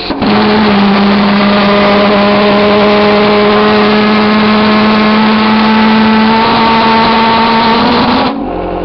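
Pulse jet engine running loudly at one steady pitch, lighting up just after the start. It cuts out about eight seconds in, leaving a quieter steady hum.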